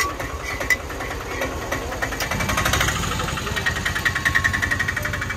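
An engine idling close by with a fast, even knocking clatter, which gets louder about two seconds in.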